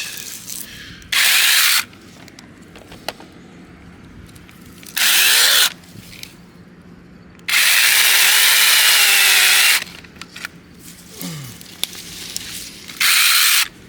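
Sainlogic battery-powered 6-inch mini chainsaw with an 850-watt brushless motor, run in four short bursts as it cuts small sprouts at a tree's base. The third burst is the longest, a couple of seconds, with the motor's whine wavering under load.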